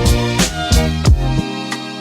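Background music with a steady drum beat and sustained pitched notes.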